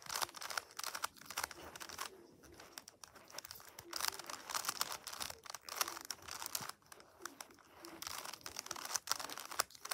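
Stickerless plastic speed cube being turned through a fast run of moves, its layers giving quick, irregular clicks and clacks. This is the algorithm for the yellow cross on the last layer being done.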